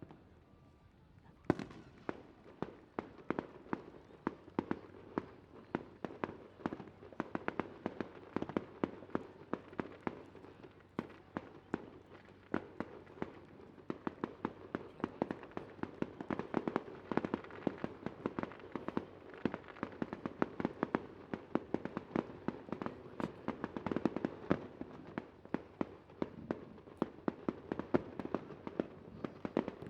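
Fireworks going off in a rapid, continuous barrage of sharp bangs and crackles, many per second, starting about a second and a half in.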